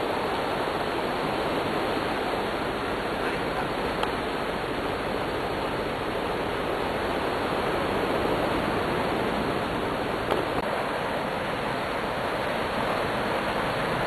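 Steady rushing noise, with a few faint clicks.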